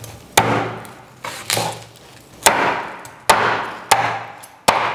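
Crispy deep-fried pork tail being chopped hard with a knife: seven sharp, forceful chops at irregular intervals of under a second, one of them lighter, each dying away quickly.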